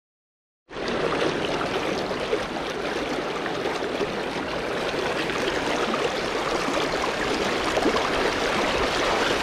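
River water rushing steadily over a shallow riffle, starting after a moment of silence at the very beginning.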